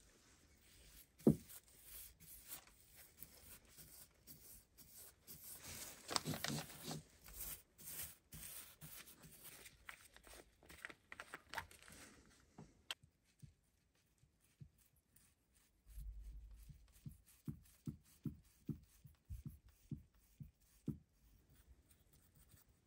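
Quiet handling sounds: rustling and small clicks as gloved hands open a plastic-capped bottle. After a sudden cut, a brush makes soft strokes on a bare steel axe head, about two or three a second.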